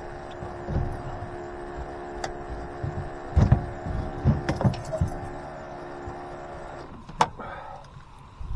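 Thumps, knocks and rattles of someone moving about the deck of an aluminum boat and handling rods and gear, over a steady hum that stops about seven seconds in; a sharp knock comes just after the hum stops.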